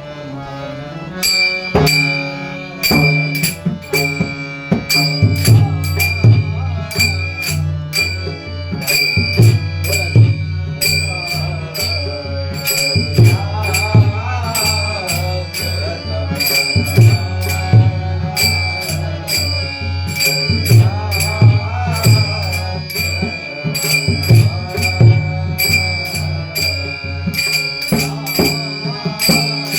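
Devotional bhajan music: small hand cymbals struck in a steady rhythm over deep drum strokes, with a singing voice that joins about halfway through.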